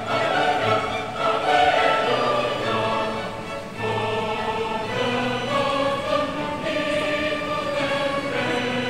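Background choral music: voices singing long held notes that change every second or so.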